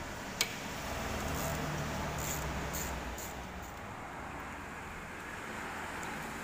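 Steady low mechanical rumble with one sharp click about half a second in and several short hissing sounds a second or two later.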